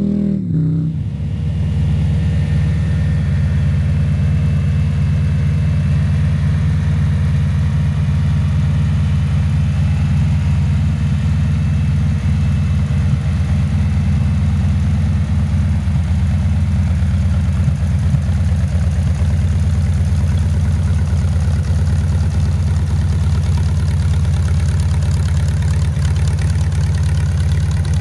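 Trike engine running at a steady idle, with no revving.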